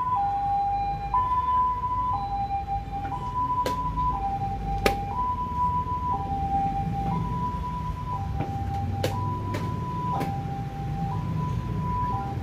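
A two-tone hi-lo siren alternating steadily between a higher and a lower note, switching about once a second, over a low background rumble. A few sharp clicks cut through it, the loudest about five seconds in.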